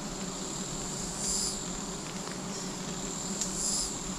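A swarm of giant honeybees buzzing around their opened nest, a steady low hum, under a steady shrill insect call that swells twice.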